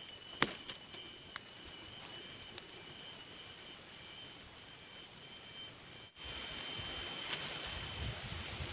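Steady high-pitched insect buzz from the surrounding vegetation, with a sharp click near the start and a few light knocks from work at the dug hole. The sound drops out briefly a little after six seconds in, then returns with a low rumble of wind on the microphone.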